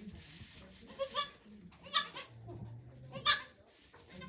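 Goat bleating: three short, high-pitched bleats about a second apart.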